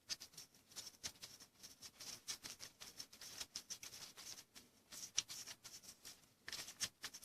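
Faint, irregular clicks and light metallic ticks of hand tools and small metal parts being handled while the timing chain tensioner is unbolted from the engine.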